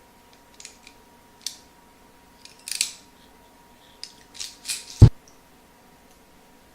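A hand tool working the stripped wires of a Cat5 cable during termination. It makes several short, crisp snipping and rustling sounds, then one sharp, loud click about five seconds in.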